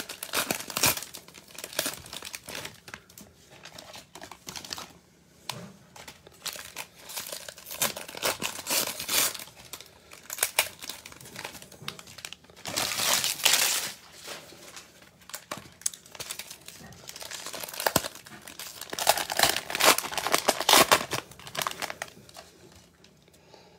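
Foil-wrapped trading card packs crinkling as hands pick them up, shuffle and restack them, in irregular bursts, loudest about halfway through and again toward the end.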